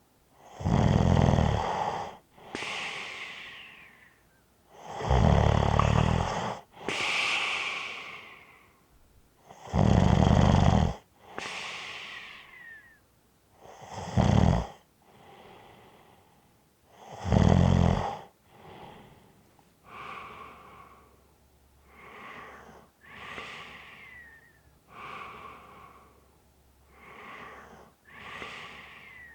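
A sleeping person snoring. Five loud, rattling snores on the in-breath come several seconds apart, each followed by an airy out-breath with a light falling whistle. About halfway through the loud snoring stops, and softer, quicker breaths follow, each out-breath whistling faintly.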